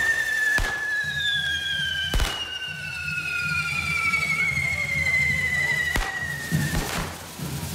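Correfoc fireworks (carretilles spraying sparks from the devils' fire-forks) whistling: two long whistles slowly falling in pitch, the second starting about a second in. About five sharp firework bangs go off, the last three close together near the end.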